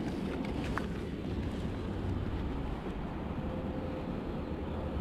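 Steady wind noise buffeting the microphone over the flow of river water around a wading angler.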